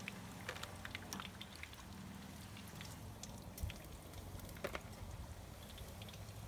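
Chicken wings deep-frying in hot peanut oil in a wok: a faint steady sizzle full of small crackles and pops, with a couple of louder pops about halfway through, over a low steady hum.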